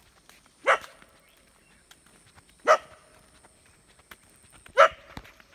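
A dog barking three single times, about two seconds apart.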